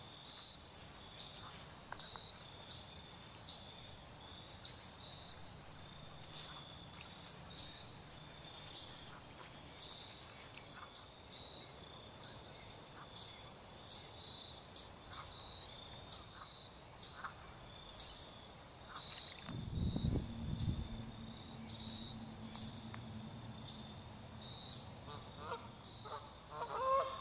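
Canada geese honking, with a few short honks near the end, over a steady high ticking of about one to two pulses a second. A brief low rumble comes about twenty seconds in.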